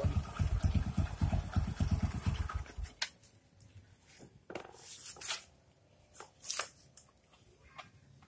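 Honda Supra X 125's single-cylinder four-stroke engine idling with a steady low firing beat, then cutting out suddenly about three seconds in. After that there are only a few scattered clicks and knocks.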